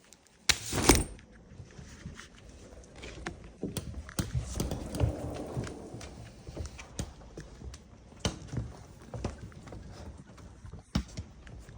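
Irregular sharp ticks of raindrops hitting an umbrella overhead, with a brief loud noise about half a second in.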